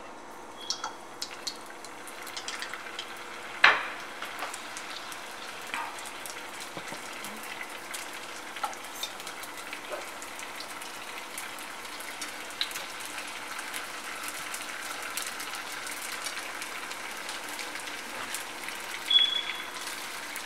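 Egg rolls deep-frying in hot oil in a stainless steel saucepan: a steady sizzle full of small crackling pops that grows a little louder as it goes. A sharp knock comes about four seconds in, and a ringing clink comes near the end.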